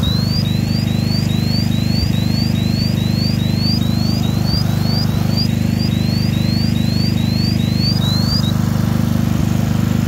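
Gas detector alarm sounding in rapid rising chirps, about two a second, signalling carbon monoxide above its 25 ppm alarm limit; the chirping stops near the end. Under it a Honda portable generator's engine runs steadily.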